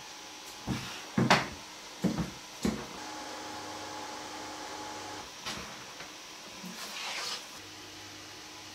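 A few sharp knocks and clicks, the loudest about a second in, with a faint steady hum for a couple of seconds in the middle: things being handled in a small room.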